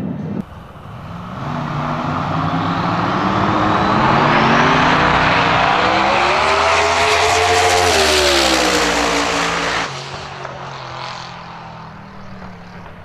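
Drag-racing Ford Mustang's race engine at full throttle on a high-speed pass, the engine note building as it approaches. Its pitch bends up and then down as it goes by, about eight seconds in. The sound drops away abruptly near ten seconds in, leaving a fainter engine sound that fades.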